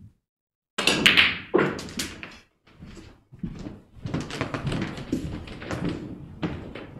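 A snooker shot: sharp clicks and knocks about a second in as the cue strikes the cue ball, which hits and pots a red and comes off a cushion. From about three and a half seconds, a run of softer knocks and shuffling footsteps as the player walks round the table.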